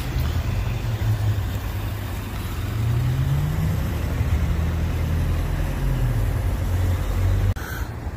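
A vehicle's engine running, its low pitch rising and then falling again, cutting off suddenly near the end.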